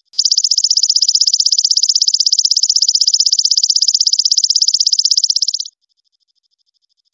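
Belalang emas (golden katydid) singing: a loud, high-pitched trill of rapid, evenly spaced pulses that cuts off abruptly after about five and a half seconds.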